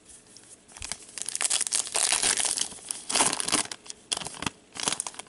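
Rustling and crinkling of hockey trading cards being handled and shuffled in latex-gloved hands, in a run of bursts starting about a second in and loudest around two and three seconds in.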